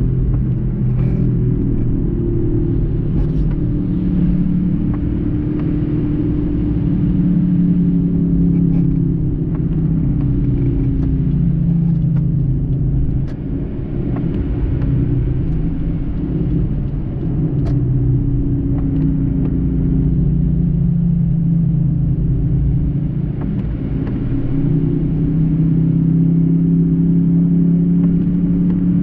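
Car engine and tyre noise heard from inside the cabin while driving on a wet road: a steady low hum whose pitch drifts up and down with speed, with a brief dip in level about halfway through.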